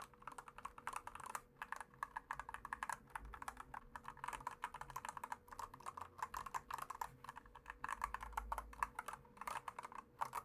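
Typing on a Machenike CK600 mechanical keyboard with brown (tactile) switches: a fast, continuous run of soft keystroke clicks, quiet.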